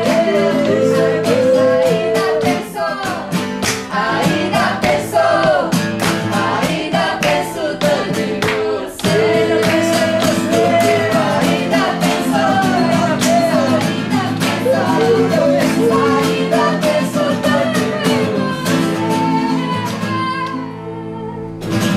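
Several acoustic guitars strummed together while voices sing, a woman's among them. The music drops in loudness shortly before the end.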